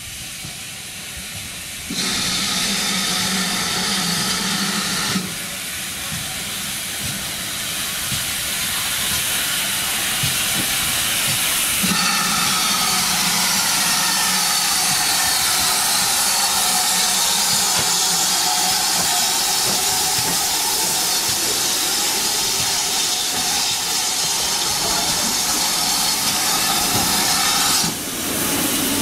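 Steam locomotive letting off steam: a loud, steady hiss that changes abruptly a few times.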